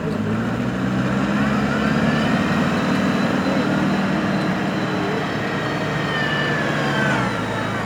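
Hydrema 906D backhoe loader's diesel engine running under working load, rising just after the start and easing back near the end. Thin high squeals glide over it.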